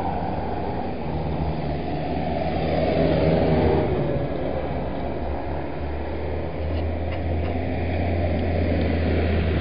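Diesel engines of modern farm tractors, a John Deere and a New Holland, running as the tractors drive past one after another: a steady low engine drone that swells for a moment about three seconds in.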